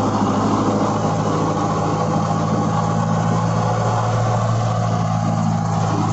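Kubota MU4501 tractor's four-cylinder diesel engine running steadily at about 2000 rpm under load, driving a 6 ft Shaktiman rotavator whose blades churn the soil.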